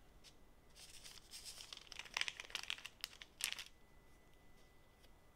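Baking parchment crinkling and rustling under the hands as a ball of yeast donut dough is pierced with a finger and lifted off the sheet; the rustling lasts a few seconds, with a sharper crinkle near the end.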